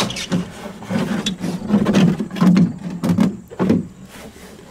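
Plastic shroud of a mid-1990s Coleman rooftop air conditioner being lifted and slid off the unit, giving a series of irregular scrapes and knocks.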